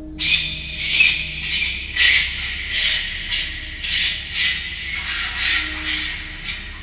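Harsh, high-pitched screeching hisses from inside a storm drain, starting abruptly and repeating about twice a second. This is the unexplained sewer-drain noise, which the resident who recorded it took for an animal in distress.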